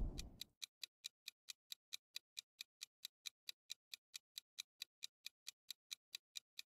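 Clock-tick sound effect of a countdown timer: faint, even ticks at about four to five a second. A whooshing noise fades out over the first half second.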